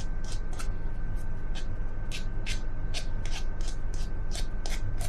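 A metal spoon scraping and tapping against a small ceramic ramekin in quick, irregular short strokes, roughly three a second, smoothing whipped egg white into the mould.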